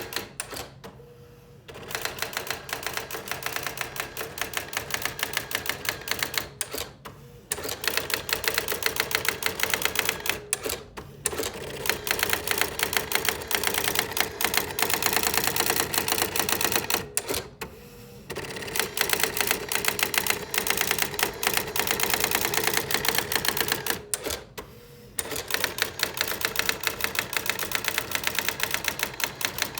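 Brother AX-15M electronic typewriter printing on its own in demo mode: a fast, even stream of typing strikes. It is broken by short lulls five times.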